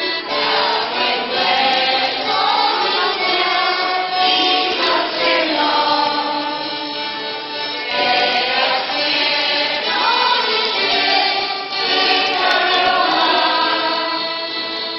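Polish folk singing group of women singing together, in phrases of about four seconds each.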